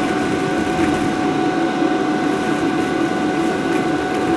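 Electric blower fan of an inflatable bounce house running steadily, a constant drone with a thin, unchanging whine.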